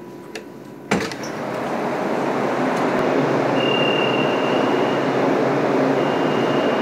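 Madrid Metro Series 8400 train standing at the platform with its doors open, giving a steady running noise with a thin high whine from about halfway in. A sharp knock comes about a second in, just before the noise swells.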